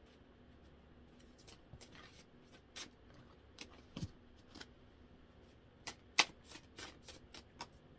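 Tarot deck being shuffled and handled: irregular soft flicks and snaps of the cards, the sharpest about six seconds in.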